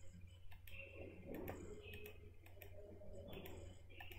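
Computer mouse clicking several times at irregular intervals, faint, over a low steady hum.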